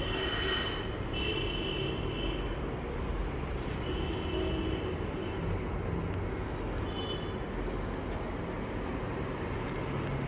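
Steady traffic rumble, with a few short, high, steady tones about a second long each, near the start and again around the middle.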